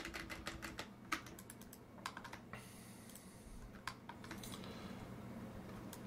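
Faint clicking of computer keyboard keys, repeated undo keystrokes: a quick run of clicks in the first couple of seconds, then a few scattered clicks. A faint steady hum comes in about two-thirds of the way through.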